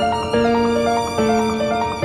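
Background music: violin-led strings playing held notes over a run of short repeated notes, the notes changing about every second.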